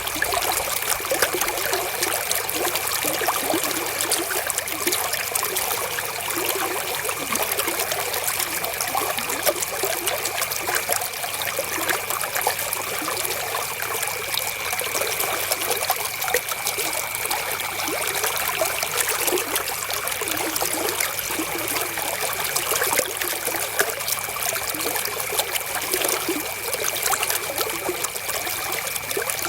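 River water flowing and trickling steadily, with a faint steady high tone beneath it.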